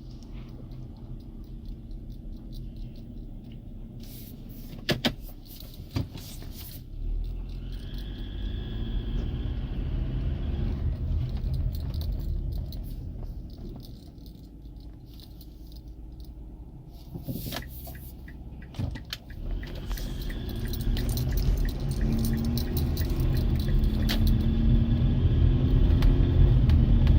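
2008 Mazda CX-7's turbocharged 2.3-litre four-cylinder engine running and pulling under acceleration twice, louder toward the end, with a buzzing like bees that appears only when accelerating, typically after the car has sat overnight; the owner cannot identify it and recently fitted a remanufactured turbo. A few sharp clicks come in between.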